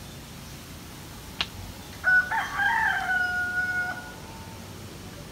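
A rooster crowing once, starting about two seconds in: a call of about two seconds that begins rough and ends in a long held note. A short click comes a little before it.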